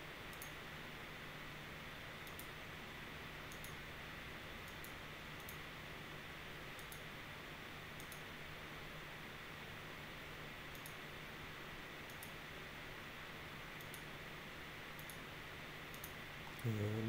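Computer mouse clicks, about a dozen, scattered singly a second or more apart, over steady recording hiss and a low electrical hum. A brief vocal sound comes near the end.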